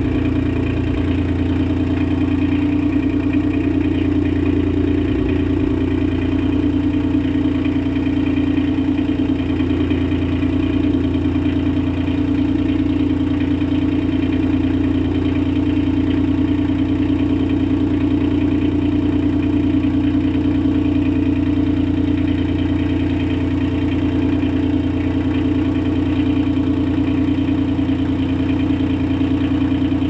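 Portable sawmill's small gasoline engine idling steadily at an even pitch.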